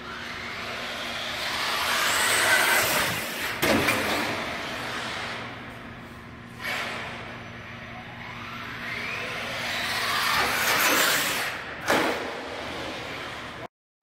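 Traxxas Slash 4x4 RC trucks driving and drifting on a concrete parkade floor: motor whine and tyre scrub swell up twice as a truck passes close, each pass ending with a short sharp knock.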